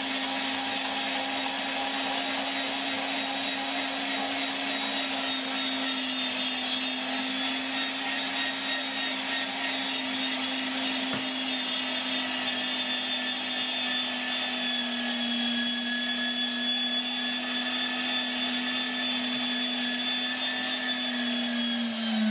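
MEAT! Your Maker 500-watt electric meat grinder running steadily, a constant motor hum and whine, while partly frozen coarse-ground brisket is fed through it and reground through the fine plate.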